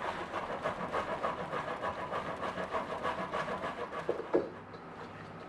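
Peeled cassava root being grated by hand against the small holes of a grater: quick rasping strokes, about four or five a second, stopping about four and a half seconds in.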